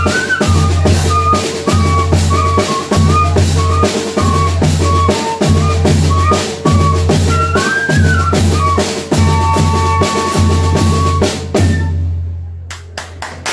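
Banda de pífano playing: a single fife melody over zabumba bass drum and snare. The music stops about twelve seconds in, with the last drum stroke ringing out.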